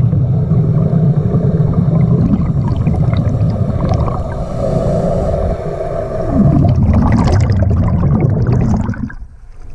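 Muffled underwater rushing and rumble heard through a camera housing, with a crackling rush of bubbles from about six and a half seconds in that stops just before the end.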